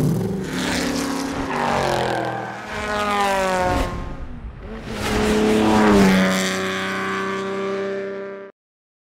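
A vehicle engine revving in two rising surges, the second settling into a steady high note before cutting off abruptly near the end.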